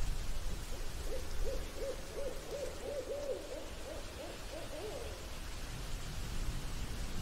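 Owl hooting: a quick run of short, wavering hoots, about two or three a second, starting about a second in and lasting some four seconds, over a steady low hiss.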